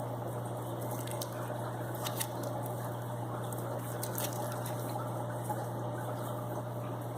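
Steady low hum with an even watery wash over it, and a few faint clicks about one, two and four seconds in.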